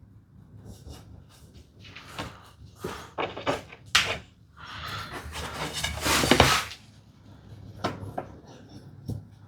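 Woodworking hand tools being handled on a bench: scattered clicks and knocks, then a louder rattling scrape about five to seven seconds in.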